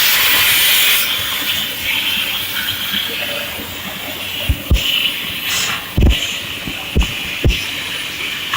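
Hypertherm MAXPRO200 plasma torch on a CNC cutting table, its arc cutting steel with a loud, steady hiss that is strongest in the first second. Several short low thumps come in the second half.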